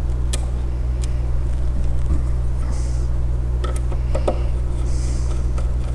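Steady low electrical hum throughout, with a few faint clicks and two short scratchy rustles as a small screw is driven down to hold an M.2 drive on its motherboard standoff.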